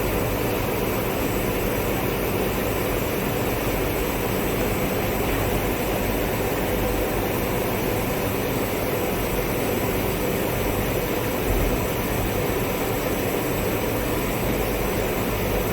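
Steady running noise of biscuit-production machinery on a factory line, an even mechanical drone with a constant hum.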